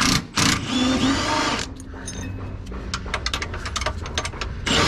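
A power tool, taken for an impact wrench, spins a nut off a rear lower control arm bolt in short bursts and then one longer run. A stretch of rapid small clicks follows, and another burst starts near the end.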